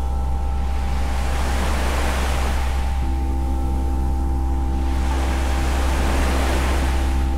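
Ambient drone soundtrack: a deep, steady hum with held tones above it, under swells of hiss that rise and fall every few seconds like surf. A lower pair of held tones comes in about three seconds in.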